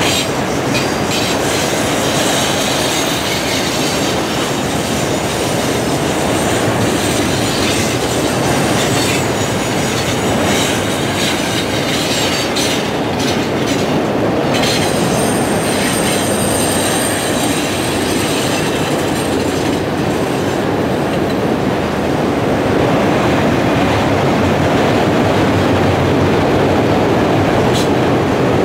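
Freight train of autorack cars rolling past: a steady loud rumble of steel wheels on rail with scattered clicks at rail joints, and a brief high wheel squeal about halfway through.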